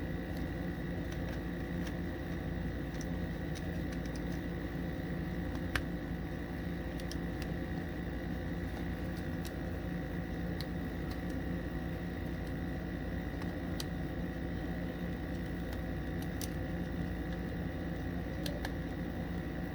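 Steady machine hum in the room, with a few faint small clicks and one sharper click about six seconds in from a small tool tightening screws on a metal magazine extension.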